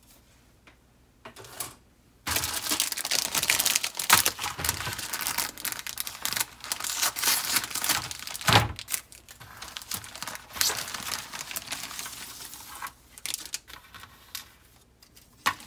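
A clear plastic bag crinkling as it is cut open with scissors and a plastic parts sprue is drawn out, starting about two seconds in and tailing off near the end. A sharp click comes just before the end.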